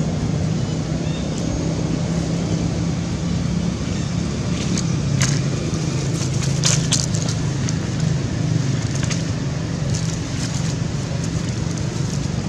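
A steady low drone, with dry leaf litter crackling in a cluster of sharp clicks from about four and a half to seven seconds in as the monkeys move on it.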